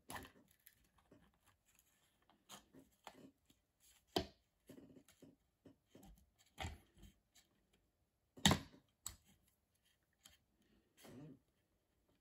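Plastic housing and parts of an opened hot glue gun clicking and knocking as they are handled and worked on with a small tool: scattered light taps, with two louder knocks about a third of the way in and two-thirds through.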